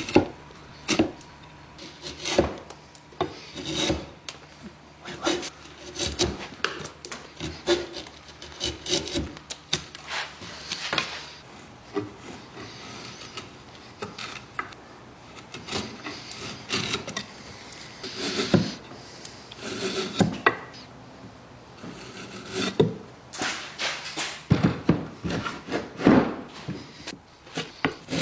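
Wood being worked by hand: irregular scraping and rubbing strokes on wood, broken by many sharp knocks and clicks.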